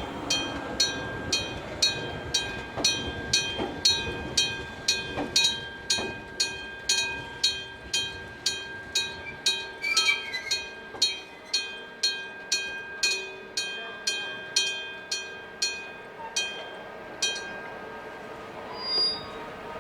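Electric gong-type level-crossing bell ringing in steady metallic strokes, about two a second, stopping a couple of seconds before the end.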